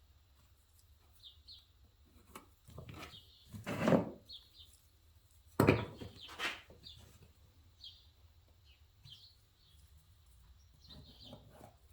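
Wooden workpieces being handled on a workbench, with a few short knocks and scrapes, the loudest about four and six seconds in. A bird chirps faintly and repeatedly in the background.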